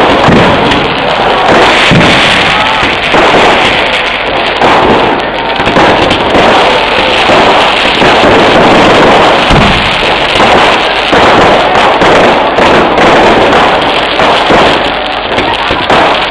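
A Kerala vedikkettu fireworks display: dense, continuous loud crackling and banging of many firecrackers going off in quick succession, with a few deeper booms, one near the start and one about ten seconds in.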